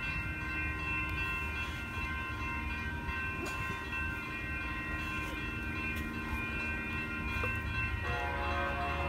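Grade-crossing warning bells ringing steadily over the low rumble of an approaching Amtrak Pacific Surfliner diesel train, which grows stronger near the end as the train nears.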